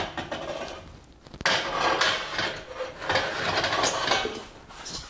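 Steel snowmobile lift being wheeled across a concrete floor on its 4.5-inch wheels. A sharp knock comes about a second and a half in, then a rumbling scrape lasting about three seconds.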